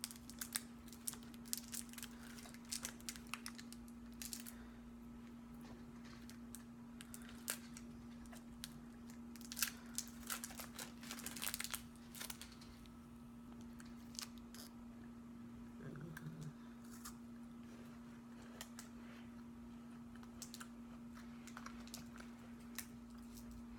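Handling and eating a chocolate-covered wafer: a plastic candy wrapper crinkling and tearing, and the crisp wafer crunching as it is bitten and chewed. The crackles come in bursts, busiest at the start and again about halfway through, then only scattered.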